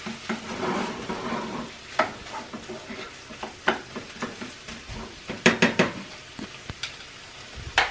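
Ground beef picadillo sizzling in a frying pan on low heat while a spoon stirs and scrapes it, with scattered clicks of the utensil against the pan. A quick cluster of sharp clicks comes a little past halfway.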